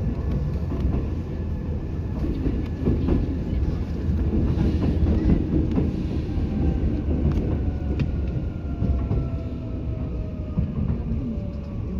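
Seibu 2000 series electric train running and slowing, heard from inside the car. There is a steady low rumble of wheels on rail with a few sharp clicks, and a thin whine that falls slowly in pitch as the train loses speed.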